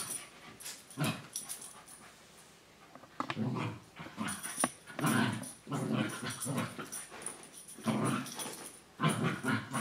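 Cockapoo dog and puppy play-fighting, growling in short bursts every second or so, with one sharp click about four and a half seconds in.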